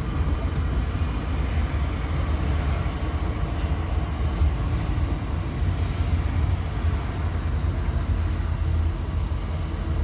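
Mercedes-Benz 360-horsepower truck engine running steadily, a low, even rumble with no revving.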